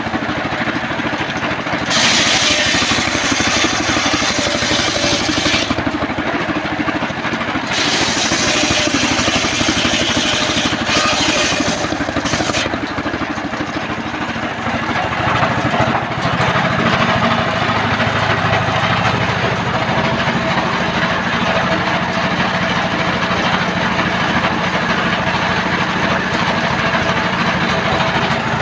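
Engine-driven home-built circular saw bench running, its blade ripping through trembesi (rain tree) wood in bursts of harsh hiss during the first dozen seconds, with pauses between cuts. After that, only the engine's steady running is heard.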